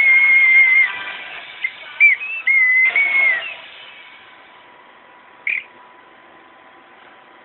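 Boatswain's pipe playing a shrill, high held note with small warbles, then a few short chirps and another held note that slides down in pitch about three and a half seconds in. After that only one brief peep.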